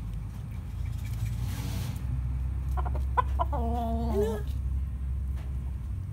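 Rooster clucking: a few short clicks followed by one drawn-out call a little past the middle, which drops in pitch as it ends.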